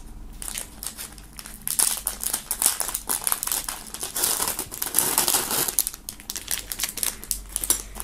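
Clear plastic foil bag crinkling and rustling in the hands as it is opened and a metal dog tag is pulled out. The crinkling is softer at first and gets busier and louder about two seconds in.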